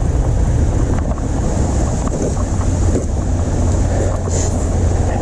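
Wind rushing over the microphone, with road rumble, while riding an e-bike along a road: a steady, loud low rumble.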